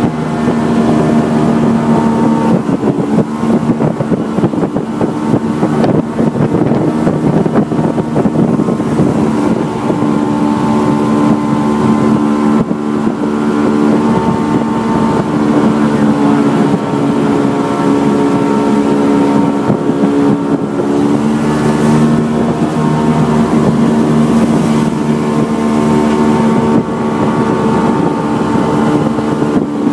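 A small boat's motor running steadily under way, a steady hum that holds its pitch, with some wind on the microphone.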